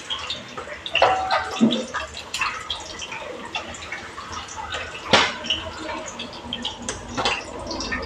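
Fish frying in oil in a pan, with a steady spatter of crackles and pops. A metal spatula clicks against the pan, with one sharp knock about five seconds in.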